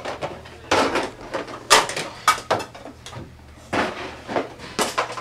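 Plastic toys and a plastic bin knocking and clattering in an irregular string of bangs and rattles, about seven of them.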